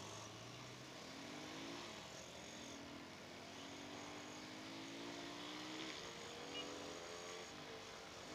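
Small motorcycle engine pulling away from idle and accelerating through the gears, its pitch climbing and dropping back at each shift several times, over wind and road noise.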